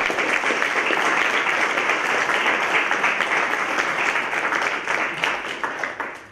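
Small audience applauding with many hands clapping, dying away near the end.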